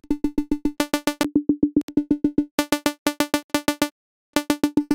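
Serum software synth playing a rapid, evenly pulsing pluck on a single D note, about seven pulses a second, made by automating the volume. Its tone turns brighter and duller as different oscillator wavetables are tried. The pulsing stops for about half a second near the end, then starts again.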